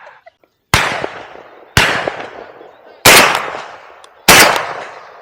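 Four shotgun shots fired at flying doves, a little over a second apart, each loud and sharp and fading away over about a second.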